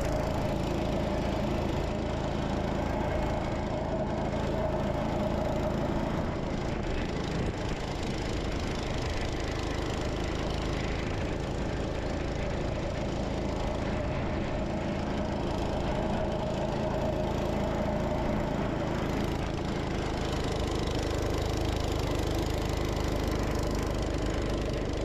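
Gravely C10 walk-behind tractor's Kohler engine running steadily under load, driving its snow blower attachment through snow.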